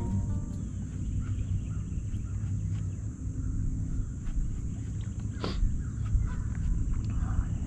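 Outdoor lake ambience: a steady low rumble with faint, scattered bird calls and one sharper call about five and a half seconds in, over a thin, steady high-pitched drone.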